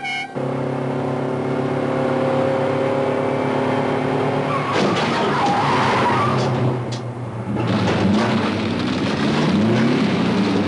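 Car-chase vehicle sound: an engine running steadily at speed, then about halfway through a stretch of skidding tyre noise with squealing. Near the end the engine revs rise and fall repeatedly.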